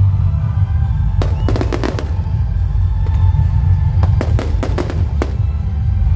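Aerial fireworks going off: a continuous deep rumble of booms, with two rapid clusters of sharp crackling bangs about a second in and again about four seconds in.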